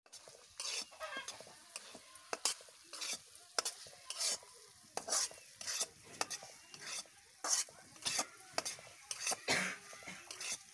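Wooden spatula scraping and stirring a sizzling spice paste in a metal kadai, in irregular strokes about once or twice a second over a steady frying hiss.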